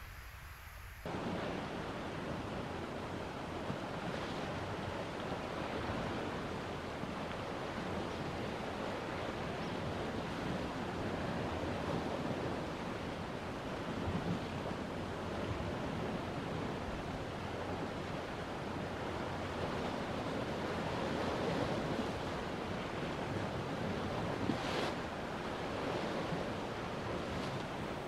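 A steady rushing noise, like wind or running water, that comes in abruptly about a second in, with a faint click near the end.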